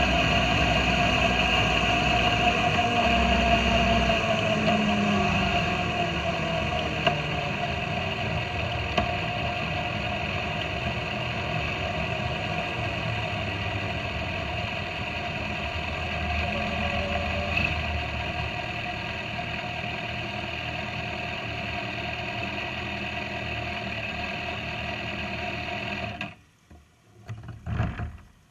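Motorcycle engine running under way with wind rush, its pitch falling as it slows in the first few seconds, then steady. Near the end the sound cuts off suddenly, followed by a few brief knocks.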